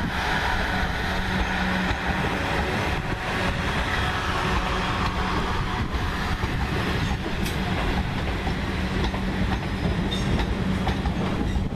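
South Western Railway Class 444 Desiro electric multiple unit running past: a steady rumble of wheels on rail with light clicks over the joints and a low steady hum, which drops away about two seconds in and returns a couple of seconds later.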